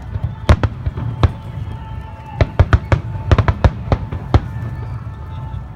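Fireworks shells bursting overhead: about a dozen sharp bangs, a few single ones in the first second and a half, then a quick cluster from about two and a half to four and a half seconds in, over a continuous low rumble.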